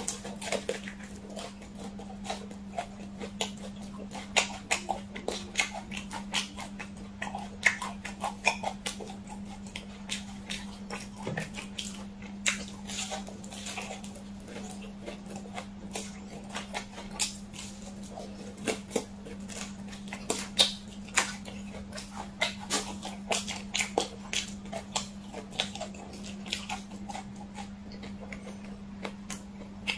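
Close-miked biting and chewing of sauce-glazed fried chicken: wet, sticky mouth clicks and smacks at an irregular pace, a few much louder than the rest. A steady low hum runs underneath.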